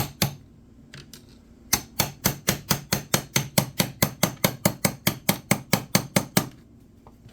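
Rapid hammer taps, about five a second, striking a stuck part on a seized McCulloch 5-10E chainsaw to knock it loose. There is a brief pause about a second in, then a long even run of blows that stops near the end.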